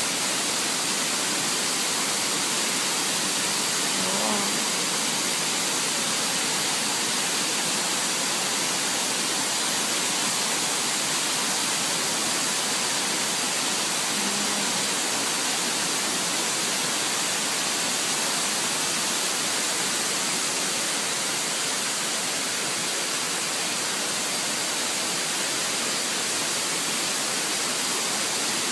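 Waterfall: water rushing steadily over a rocky tier of cascades.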